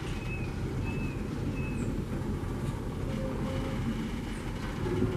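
Freight train's hopper wagons rolling slowly past, a steady low rumble of steel wheels on rail. A short high squeak repeats about every half second during the first two seconds.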